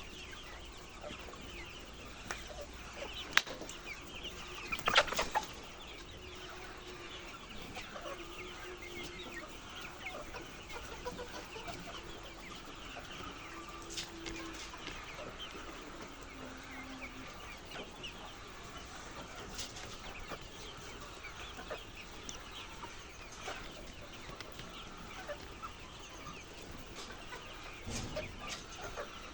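A flock of laying hens clucking continuously, with a few sharp clicks or knocks: the loudest come about three and five seconds in.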